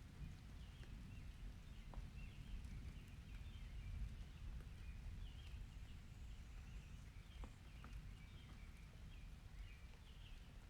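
Faint summer storm ambience: a low, steady rumble of distant thunder under short, repeated bird chirps, with a few single drips or ticks.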